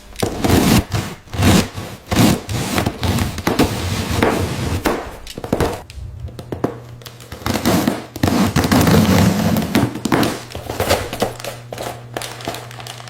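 Rapid, irregular knocking and rustling, like handling or clattering objects, with a steady low hum coming in about halfway through.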